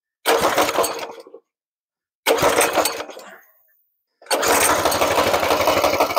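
Coleman CT200U mini bike's small single-cylinder engine being pull-started on choke: two pulls that briefly fire and die away, then on the third pull, about four seconds in, it catches and keeps running.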